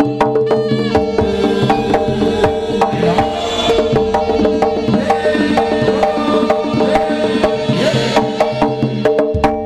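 Live Javanese jaranan gamelan accompaniment: fast, dense hand-drum strokes over gongs and metallophones, with a held tone running underneath.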